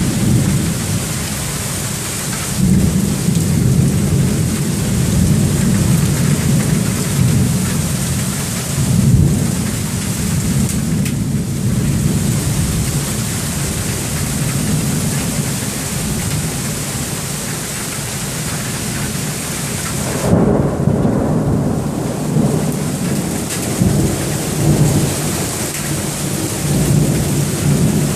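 Heavy rain pouring down steadily in a thunderstorm, with repeated low rumbles of thunder swelling and fading. The strongest rumble comes about two-thirds of the way through.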